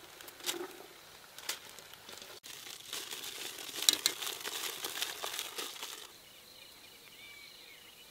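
Aluminium foil crinkling and crumpling as it is folded into parcels around fried fish pieces, with a few sharp taps, densest in the middle. About six seconds in the crinkling stops and a steady high insect drone is left.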